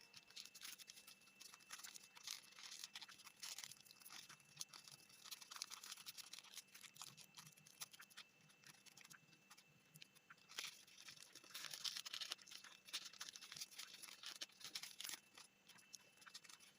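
Faint crinkling and creasing of paper as an origami model is folded by hand, irregular small crackles and rubs.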